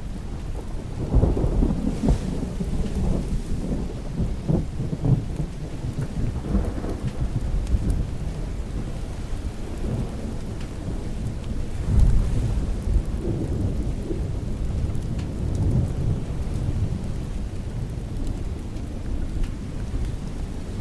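Thunder rumbling over steady rain. The rumble swells about a second in and again about twelve seconds in.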